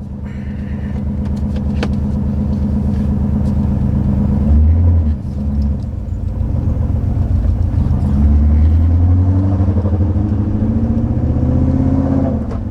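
BMW E39's engine pulling away and accelerating, its note rising, falling back about five seconds in, then climbing again, with another dip near the end.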